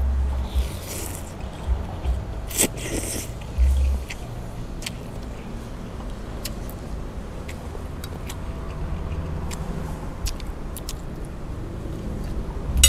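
A person slurping a mouthful of khanom jeen rice noodles, twice in the first three seconds, then chewing with scattered small clicks of the fork and spoon against the plate.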